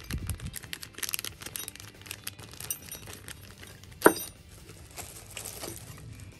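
Handling noise: small hard objects clinking and rattling, with light crinkling and one sharp knock about four seconds in.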